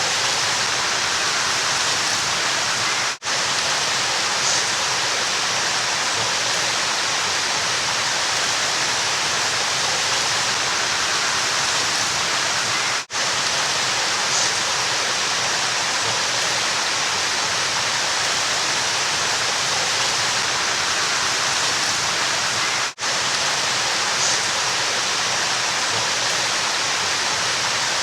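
River water rushing steadily as an even, hiss-like noise. It drops out for a split second three times, about ten seconds apart.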